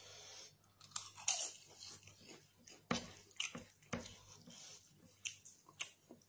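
Close-up eating sounds: crunchy chewing of papadam, with sticky, wet squishes as fingers work rice into chicken curry on the plate. There are two stronger soft thuds about three and four seconds in.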